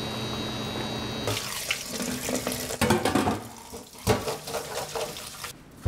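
Water running from a kitchen tap onto boiled somen noodles in a stainless mesh colander, splashing as a hand rubs and rinses them. The water cuts off near the end.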